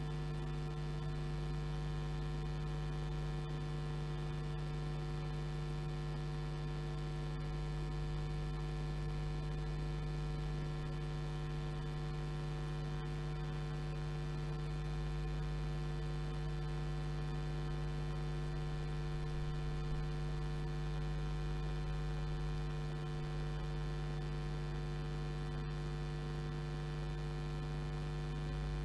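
Steady electrical mains hum: a low buzz with many higher overtones, unchanging, with no engine or crowd sound audible.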